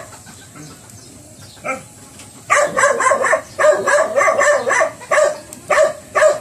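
A dog barking: one bark at the start, another about a second and a half later, then a rapid run of about ten barks over the last four seconds.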